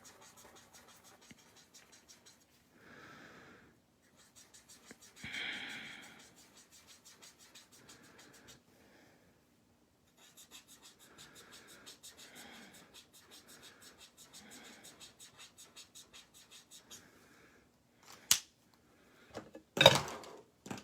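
Faint, quick, even scratching of a Color Lifter's tip rubbed in small ovals over marker colouring on cardstock, lifting ink to lighten the coloured area. A couple of sharp clicks come near the end.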